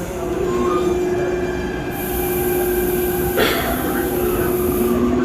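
CPTM CAF Série 2000 electric train running, its traction motors giving a steady whine. A high hiss comes in about two seconds in and stops about a second before the end, and there is one sharp knock about three and a half seconds in.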